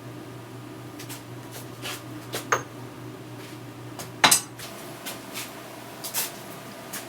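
Small metal tools and parts clinking and knocking against each other, about ten separate sharp clinks with the loudest about four seconds in, over a steady low hum.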